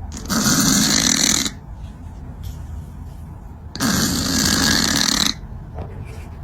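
Two long, loud rasping snores, each lasting about a second and a half, a couple of seconds apart.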